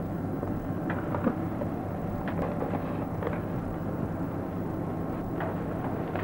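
Eatery background noise: a steady low rumble with a few faint short clatters scattered through it.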